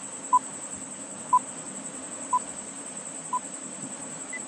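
Countdown timer sound effect: four short electronic beeps one second apart, fading from loud to faint, then one shorter, higher beep near the end. A faint steady high-pitched whine runs underneath.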